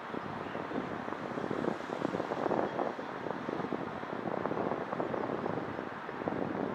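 Distant city traffic hum, a steady rushing noise, with wind buffeting the microphone.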